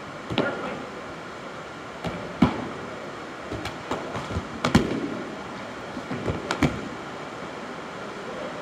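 LARP foam weapons striking in close combat: a handful of short, sharp hits at uneven intervals, loudest about two and a half and five seconds in.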